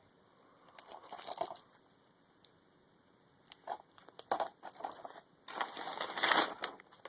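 DVD cases being handled and swapped: irregular clicks and crinkly rustling in several bursts, the loudest near the end.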